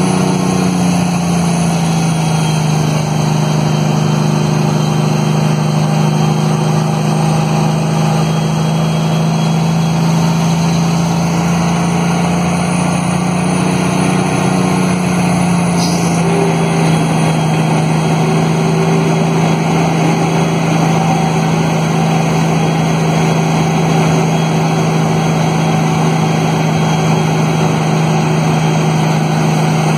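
Cummins diesel engine of a Kenworth T800 tractor-trailer, heard from inside the cab, holding the truck back on a long downhill under engine brake: a steady low drone whose pitch drops a little about a second in, rises again shortly before the middle and drops back soon after.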